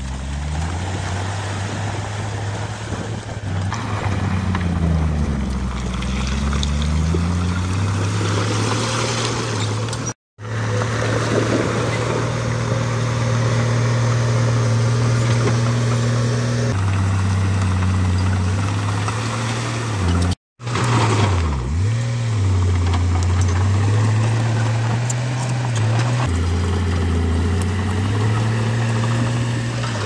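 Heavy diesel engine of an earth-moving machine working, its pitch rising and falling as it revs up and eases off under load. The sound cuts out for a split second twice, about ten and twenty seconds in.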